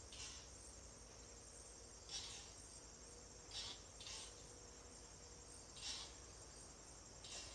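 Faint outdoor insect chorus, a steady high trill with short raspy chirps every second and a half to two seconds.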